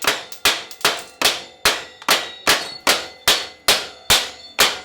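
Steady hammer blows on a stuck motorcycle exhaust pipe, about two and a half ringing metallic strikes a second, knocking the tight pipe free.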